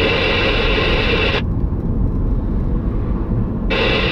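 A CB radio's speaker opening twice on a weak, noisy signal: a burst of hiss and garble about a second and a half long at the start, then a short one near the end, over steady car road noise. The reply is barely readable ('didn't really get much of that'), with interference on the channel.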